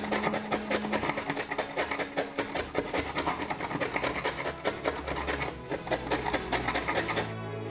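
A steel chisel scraping and chipping small glued wood pieces out of a wooden tabletop: a fast, uneven run of scratchy, splintering strokes, several a second, that stops shortly before the end. Background music plays underneath.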